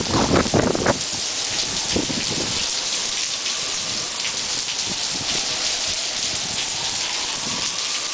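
Heavy downpour in a supercell downburst: a dense, even hiss of rain, with gusts of wind buffeting the microphone in a loud burst of rumbles during the first second and again more weakly about two seconds in.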